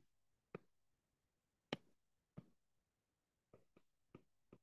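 Faint, sharp taps of a stylus tip on a tablet's glass screen during handwriting: a few scattered ticks, the loudest a little under two seconds in, then a quicker cluster of four near the end.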